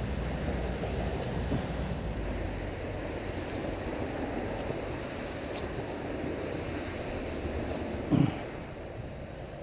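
Steady rushing noise of wind and handling on a body-worn camera's microphone as the wearer moves along the bank. A brief, louder low sound comes about eight seconds in.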